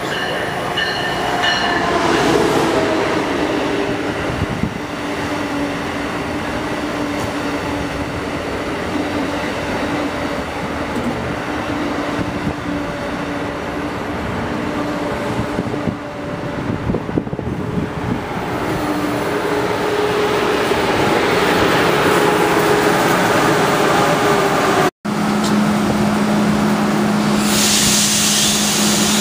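Passenger train running past a station platform: a steady rumble of wheels on rail with a low whine that drifts in pitch. The sound breaks off abruptly about 25 seconds in, and a steady low hum with a hiss follows.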